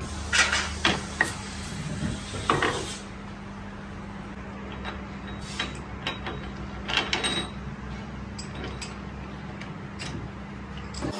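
Steel parts clinking and clanking against a lathe's three-jaw chuck as a gear is taken out and a splined shaft is clamped in, with the chuck key turning the jaws; the clanks come in clusters, loudest in the first few seconds, over a steady low hum.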